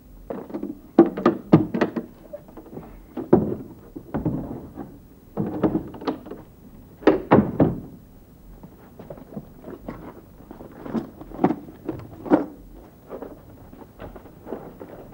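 A series of irregular knocks and thumps, coming in small clusters with short gaps between them.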